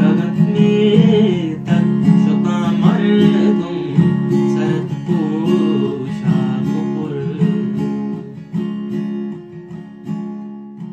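Outro background music, fading out gradually over the second half.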